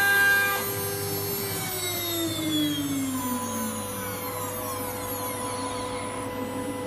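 LR-6015E CNC router's motors running with a whine. The steady tones stop about half a second in, and a tone falls in pitch as the machine slows. A new steady hum starts near the middle.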